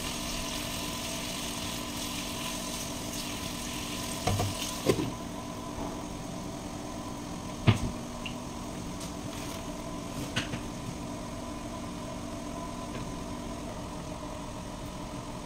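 Chicken sizzling in a frying pan over a steady fan hum; about five seconds in a glass lid clatters onto the pan and the sizzle becomes muffled. A few sharp knocks follow, the loudest a little later.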